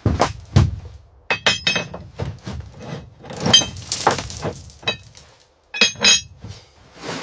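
Hard objects clinking and knocking: a series of separate sharp strikes, several of them with a brief high ringing, in clusters about a second and a half, three and a half, and six seconds in.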